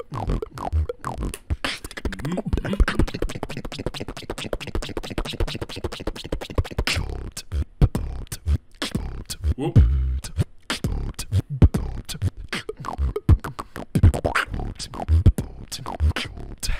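Solo human beatboxing into a handheld microphone: fast clicks and snare-like hits over deep kick-drum sounds.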